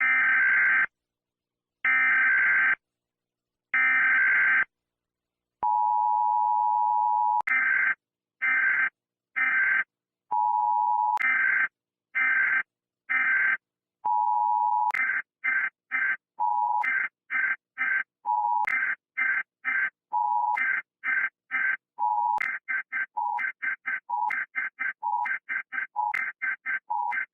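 United States Emergency Alert System signal: three bursts of SAME digital header data, then the steady two-tone attention signal. The sequence repeats over and over with each burst and pause cut shorter, so the bursts come faster and faster.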